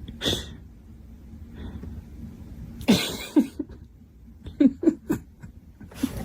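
A dog's short vocal sounds: breathy cough-like huffs and a few brief low cries.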